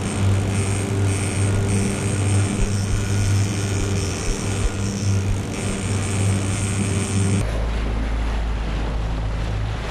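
Outboard motor running steadily while trolling, with the wake rushing and splashing behind the boat. About seven and a half seconds in, the engine hum cuts out and wind buffets the microphone over splashing water.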